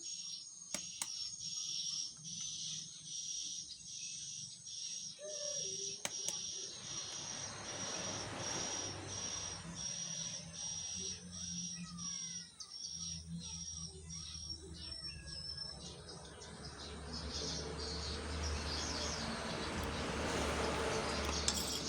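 An insect calling in high-pitched, evenly spaced pulses, about one and a half a second, which fade out about three-quarters of the way through. Under it a broad hiss grows and a low hum builds, getting louder near the end.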